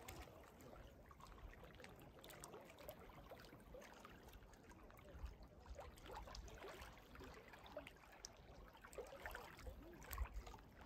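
Near silence: faint outdoor ambience with a few scattered faint ticks.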